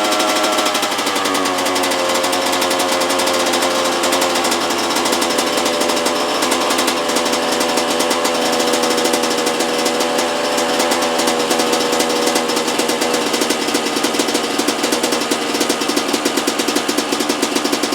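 Yamaha YZ125 single-cylinder two-stroke dirt bike engine running steadily on its first start after a carburetor cleaning, its pitch easing down a little in the first couple of seconds; the owner judges it is not running right.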